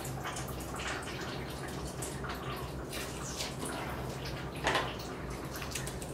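Wet squelching of flushing solution in a dog's ear canal as the base of the ear is massaged vigorously to loosen black wax, with a louder squelch about four and a half seconds in. A steady low hum runs underneath.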